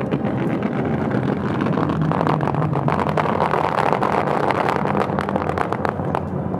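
Fireworks crackling and popping in a dense stream of sharp cracks, thickest in the middle, over steady show music.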